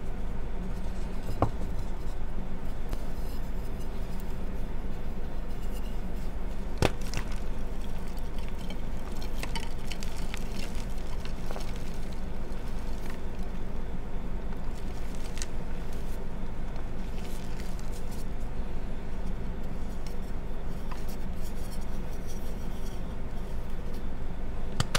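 Bare hands crushing pressed gym-chalk reform blocks: sharp, glassy cracks as the blocks break, about a second and a half in and again around seven seconds, with scattered dry crunching of crumbling chalk in between. A steady low hum lies underneath.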